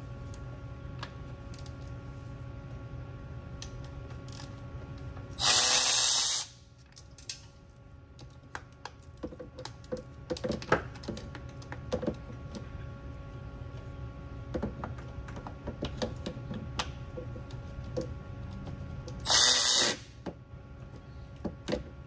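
Cordless electric ratchet with a 10 mm deep socket spinning coil-pack bolts on an LS1 valve cover, in two loud runs of about a second each: one about five seconds in, one near the end. Between the runs come scattered light clicks and taps of tool handling.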